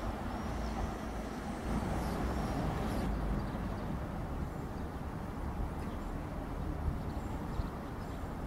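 Steady low rumble of distant electric trains. First a Trenitalia E.464 electric locomotive-led train moves away; then, after an abrupt change about three seconds in, a Sangritana E.483 electric locomotive hauling a freight train approaches from far off.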